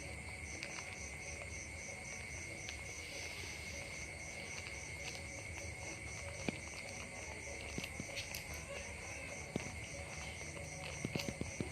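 Insects chirping steadily in an even pulse of about three chirps a second over a constant high drone, with scattered faint clicks and ticks.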